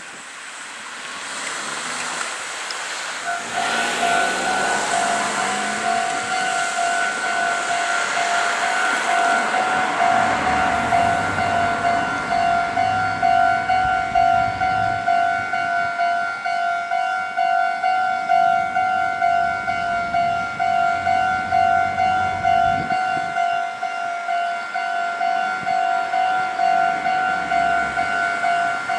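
Japanese railway level-crossing warning bell starting about three seconds in and ringing on in a steady, evenly repeating two-tone ding. Under it is a broad rushing noise, strongest in the first half.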